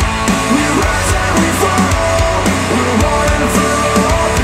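Death metal playing through Polk Audio Reserve R200 bookshelf speakers: heavy distorted electric guitar over a steady drum beat.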